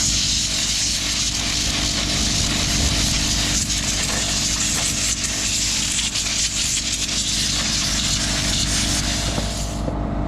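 Compressed air hissing from a blow gun as it blasts fine sawdust out of a chainsaw's engine housing, over the steady hum of a running air compressor. The air cuts off near the end while the compressor keeps running.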